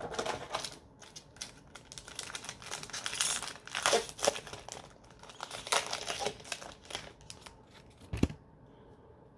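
Foil wrapper of a Yu-Gi-Oh Mega Tin booster pack being torn open and crinkled in the hands, crackling in irregular bursts for about seven seconds. A single thump near the end.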